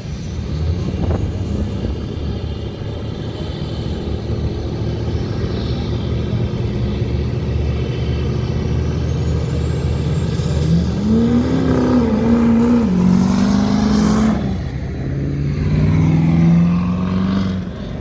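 Turbo-diesel pickup trucks drag racing: engines rumbling at the line under a thin high whine that slowly climbs. About ten seconds in they rev hard and launch, the turbo whistle sweeping sharply up and the engine note rising in steps as they pull down the strip.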